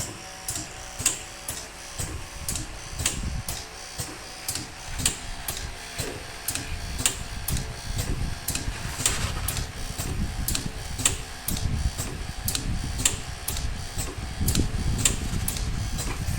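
Pneumatic connector socket strength testing machine running its automatic test cycle. It gives sharp mechanical clicks at a steady rhythm of about two a second over a low mechanical rumble.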